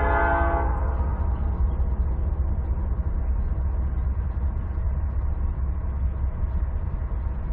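Diesel locomotive horn blast cutting off a little under a second in, followed by a steady low rumble from the approaching train.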